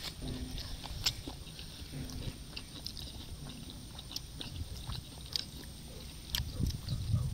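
Close-miked eating: chewing and biting into crispy chopped-pork sisig, with many small sharp crunches and mouth clicks and a couple of brief low hums. A low rumble grows louder near the end.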